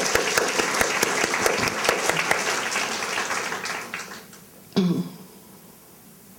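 Audience applauding with dense clapping that dies away about four seconds in. Then a brief, loud vocal sound about five seconds in.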